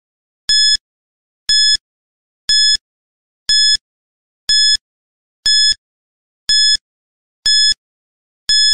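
Electronic countdown timer beeping: a short, high beep once a second, nine in all, with silence between, ticking off the seconds left to answer.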